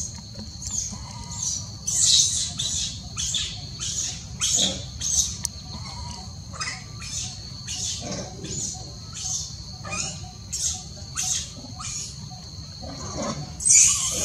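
Baby macaque giving short, high-pitched distress calls over and over, about two a second, louder near the end: an infant calling out for help. A steady high-pitched drone runs underneath.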